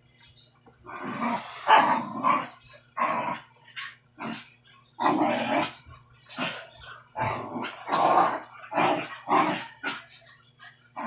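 Dogs barking repeatedly, a dozen or so short barks with brief gaps between them.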